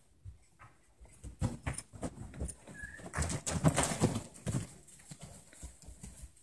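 Hoofbeats of two horses trotting over soft dirt and straw footing, a scatter of uneven thuds that grows loudest about three to four seconds in.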